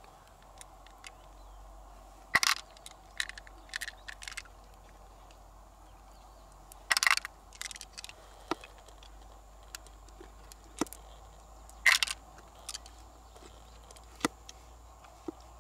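Fingers working through the wet flesh of an opened freshwater pearl mussel, with scattered short clicks and crackles. Three louder crackles come about 2.5, 7 and 12 seconds in.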